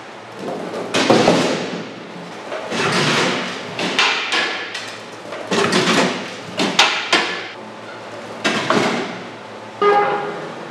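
A run of hard knocks and scraping clatter, a burst every second or so, the last few with a short metallic ring.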